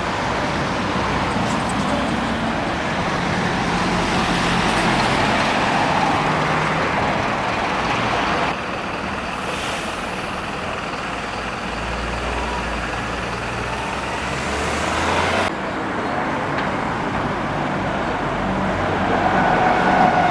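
Road traffic: motor vehicles driving past, with an engine's low hum under the tyre and road noise. The sound changes suddenly twice, about eight and fifteen seconds in.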